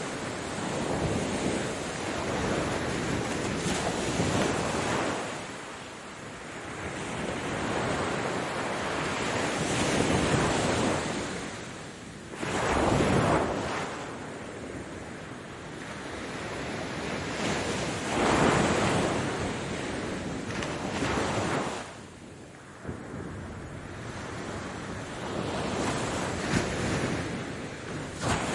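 Ocean waves washing onto the shore: a continuous surf rush that swells and ebbs, with a louder wave breaking every few seconds.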